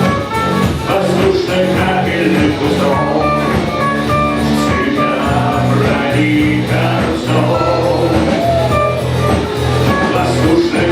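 Rock band playing a song live: an instrumental stretch with guitar, bass and drums.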